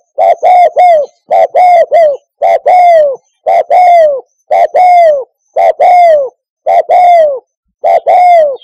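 Spotted dove cooing: short coos in twos and threes, each note dropping in pitch at its end, repeated about once a second.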